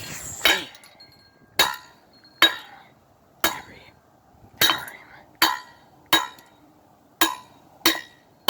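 A toy car being bashed repeatedly: about nine sharp clinking blows, spaced roughly a second apart, each with a brief ring.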